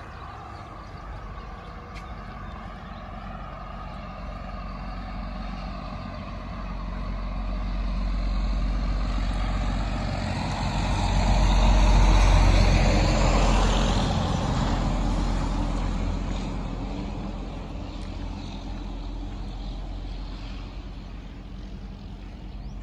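A motor vehicle passing on a nearby road: its engine and tyre noise builds over several seconds, is loudest about halfway through, then fades away.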